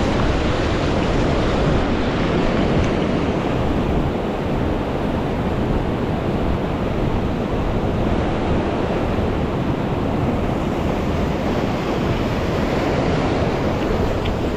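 Mountain stream rushing over rocks: a loud, steady rush of water.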